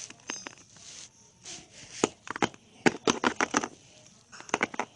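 Small hard objects being handled, making a string of sharp clicks and knocks. Most of them come in quick clusters in the second half.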